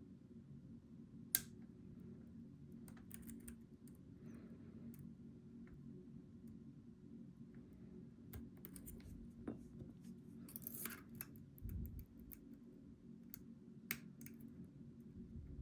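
Faint scattered clicks and scrapes of steel lock picks working the pins inside a Goal V18 pin-tumbler lock, over a steady low hum. One sharper click comes about a second in, with a cluster of scraping clicks later on.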